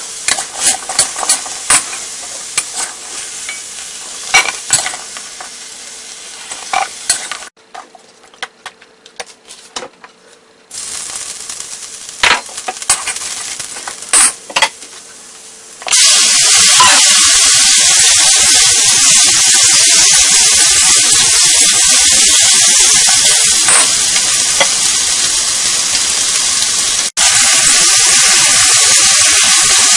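Stir-frying in a wok: frying potatoes sizzle while a metal spatula clicks and scrapes against the pan, then a softer sizzle of minced ginger in oil. About sixteen seconds in, a much louder, steady sizzle starts as chicken wings hit the hot oil and are stir-fried.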